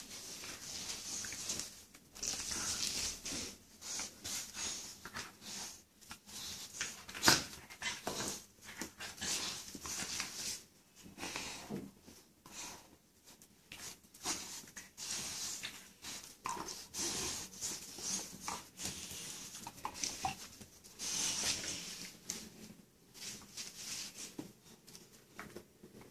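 Dogs and a cat play-wrestling: snuffling and breathing through the nose, with fur rustling and paws scuffing in irregular bursts. There is one sharp knock about seven seconds in.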